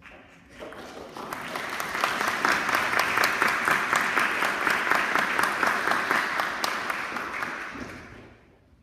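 Audience applauding: the clapping builds up over the first couple of seconds, holds steady, then dies away near the end.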